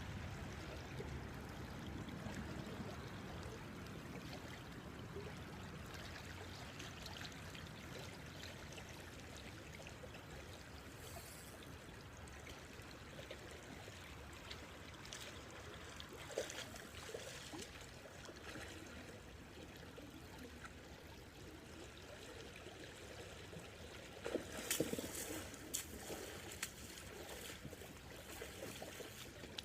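Creek water trickling and running steadily, with a brief cluster of short clicks and knocks about twenty-five seconds in.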